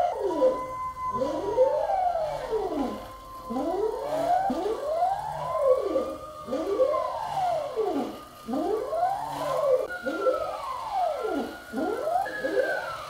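Stepper motors driving a large CoreXY 3D printer's gantry and carriage through fast moves. They give a whine that climbs and falls in pitch as each move speeds up and slows down, over and over, every second or so, with the later moves reaching higher.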